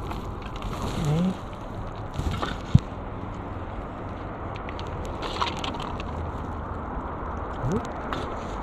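Crackling, scraping and scattered clicks, typical of plastic litter being handled and gathered, with one sharp click about three seconds in. Underneath runs a steady low background noise.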